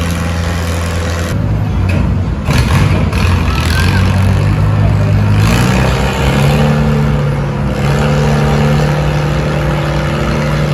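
Vintage farm tractor's engine revving up under load as it pulls a weight-transfer sled. The pitch climbs about a second and a half in and again around five to six seconds in, then holds steady and high.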